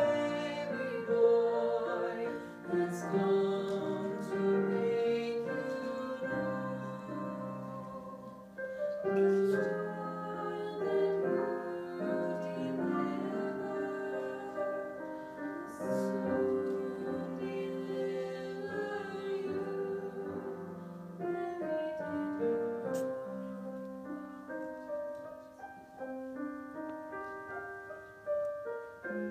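Singing with piano accompaniment in a recital duet, the voices holding long notes over the piano.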